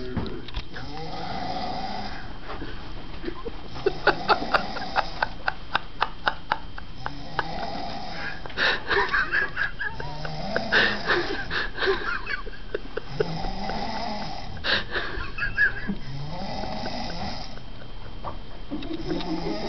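A person snoring in slow, regular breaths, one about every three seconds. Runs of sharp clicks come between breaths in the middle stretch.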